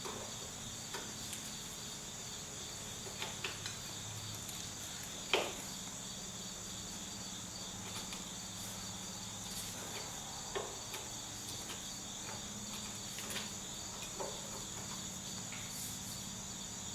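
Crickets chirring steadily in a high, even drone, with a few light clicks and taps from hand tools on fittings, the sharpest one about five seconds in.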